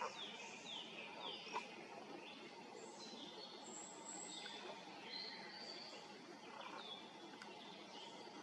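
Small birds singing at dusk: a quick run of short downward-sliding chirps in the first second and a half, then scattered high, thin whistled notes, over a steady low background noise.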